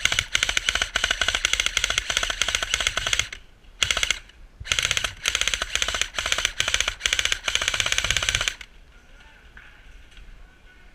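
Airsoft gun firing on full auto, a fast rattle of shots. One long burst of about three seconds, a short burst, then about four more seconds of bursts, stopping well before the end.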